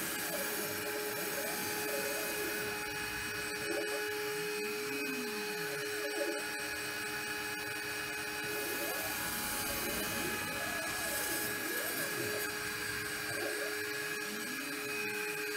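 DIY 5-axis CNC router cutting XPS foam: the spindle keeps up a steady high whine and hiss, while the axis motors make repeated whines that rise and fall in pitch as the head moves and tilts over the part.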